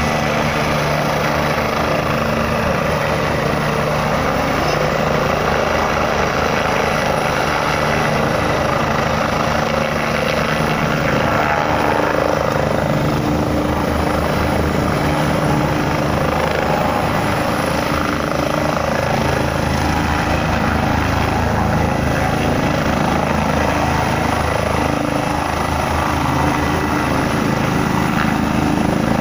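Helicopter rotor beating steadily and close, mixed with the steady noise of the car it is heard from.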